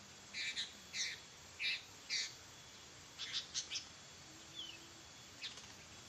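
Sooty-headed bulbul (kutilang) calling: four short chirped notes in the first two seconds or so, then a quick run of three or four notes, and a few fainter notes near the end.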